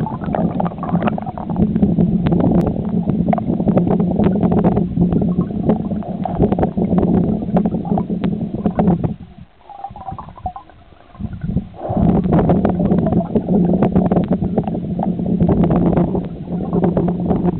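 Stream water gurgling and rushing close to the microphone, a steady low rumble with small clicks and splashes; it drops away for about three seconds midway, then comes back.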